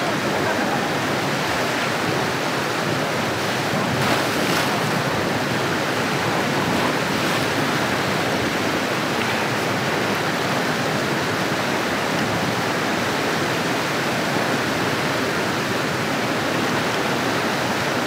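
Waterfall water rushing steadily over rocks, an even unbroken noise.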